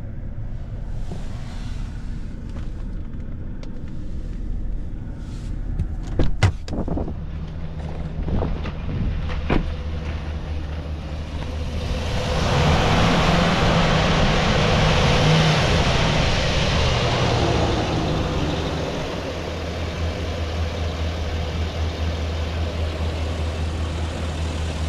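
2017 Chevrolet 2500HD pickup's V8 engine idling steadily, with a few sharp clicks and knocks about six to ten seconds in. From about twelve seconds in, with the hood open, the engine is heard louder and with more hiss for several seconds, then settles back to a steady low hum.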